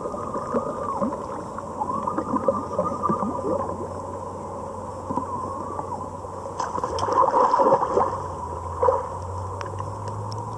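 Underwater bubbling and gurgling as air escapes from a clear plastic container held over a swimmer's head, heard muffled through the water. It grows louder for a second or so about seven seconds in.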